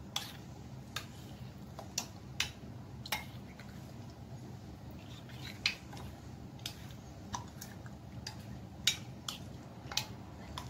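A spoon stirring chicken pieces in a beaten-egg marinade, clicking and scraping against a ceramic bowl in irregular light knocks, about one or two a second.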